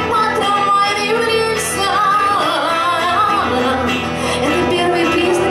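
A woman singing live into a microphone, accompanied by an electric guitar.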